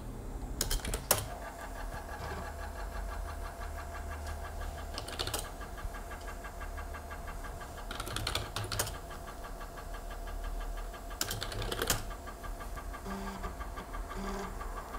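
Panasonic (Matsushita) 5¼-inch floppy drive reading a disk: the spindle motor hums steadily while the head stepper clicks in short bursts every few seconds, with two brief buzzes near the end. The drive is now reading properly, its head carriage axle freshly cleaned and lubricated with WD-40.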